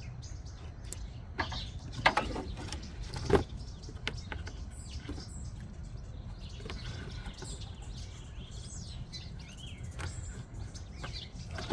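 A few sharp clicks and knocks from the Datsun turn signal switch and its test rig being handled, the loudest about three and a half seconds in. Birds chirp in the background and a low steady hum runs underneath.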